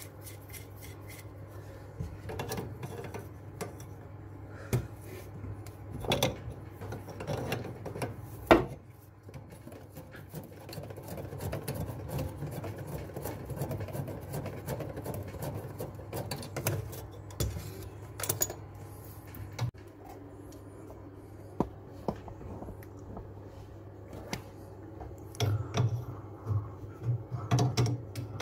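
Wrench and hands working the metal nuts of a basin tap's flexible supply hoses at the isolation valves: scattered metallic clicks, knocks and scrapes, with a sharp knock about eight seconds in and quicker knocking near the end, over a low steady hum.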